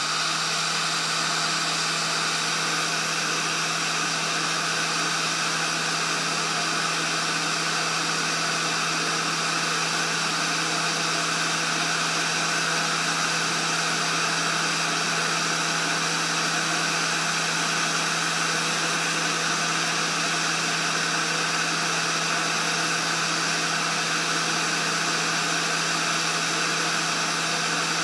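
Heat gun running steadily at a medium setting, its fan blowing hot air onto a small surface-mount chip to melt the solder balls and solder it to the board. A steady rush of air with a constant motor hum underneath.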